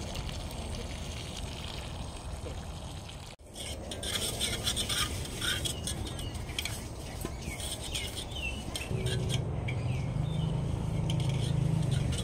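Hands swishing soaked mung beans through water in an aluminium pot to wash them. After a sudden break a few seconds in, short clinks and scrapes of the metal pot being handled, with a low steady hum joining near the end.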